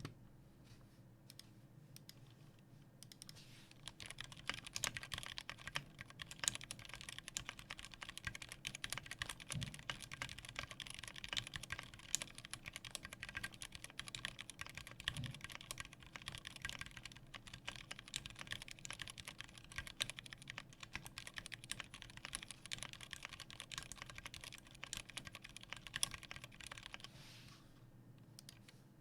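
Typing on a custom 60% mechanical keyboard with lubed Gateron Brown tactile switches in an aluminium plate and Tofu case, with PBT keycaps. A few scattered keystrokes come first, then fast, steady typing from about three seconds in until a couple of seconds before the end.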